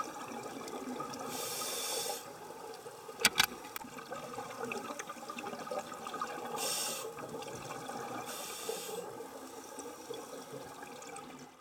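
Underwater recording: a steady crackling background with three short hissing bursts of bubbles. Two sharp knocks about three seconds in are the loudest sounds.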